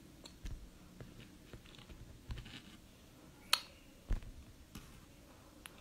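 Quiet small-room tone with a few scattered faint clicks. The sharpest comes about three and a half seconds in, with a soft low thump just after.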